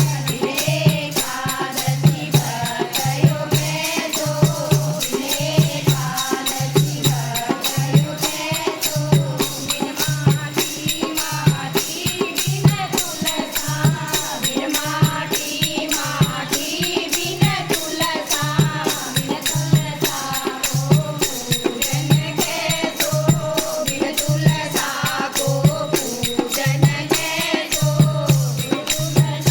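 Devotional bhajan sung by a group of voices at a kirtan, over a steady low drum beat and constant rattling hand percussion.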